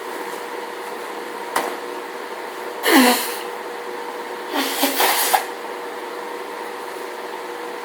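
A woman sneezing during a hay-fever allergy fit. A sharp sneeze comes about three seconds in, its voiced end falling in pitch, and a quick cluster of shorter breathy bursts follows about a second and a half later, over a steady background hum.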